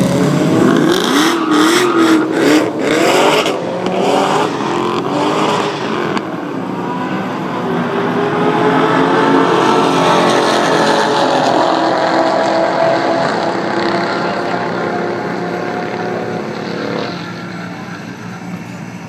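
High-performance cars running flat out in a roll race, several engines at full throttle with their notes climbing and falling in pitch as they accelerate past, fading away near the end.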